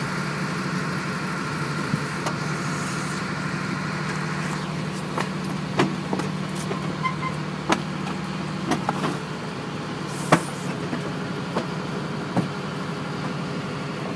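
A boat's engine running steadily, with scattered sharp clicks and knocks over it.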